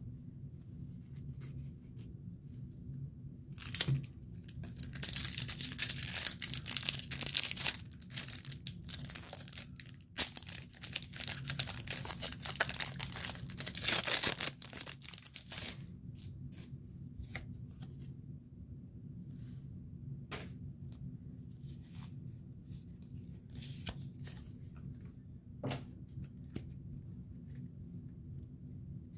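Foil wrapper of a Pokémon TCG Crown Zenith booster pack being torn open and crinkled, in two loud stretches starting about four and ten seconds in. After that only light clicks and rustles of handling.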